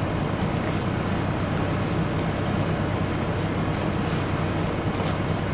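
Idling truck engine: a steady low hum with an even hiss over it.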